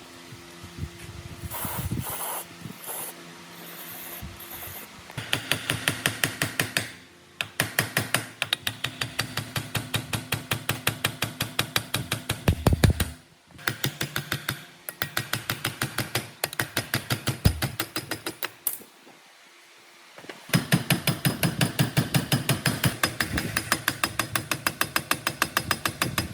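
Rapid, regular mechanical clicking, about eight clicks a second, in runs of a few seconds broken by short pauses.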